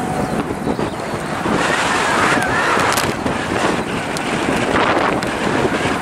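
Gusty wind buffeting the microphone, swelling about two seconds in and again near the end, over the steady rush of a distant twin-engine jet airliner on the runway.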